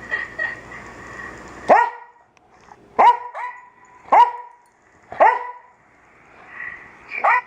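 A dog barking repeatedly, about six sharp single barks roughly a second apart, the last two close together near the end.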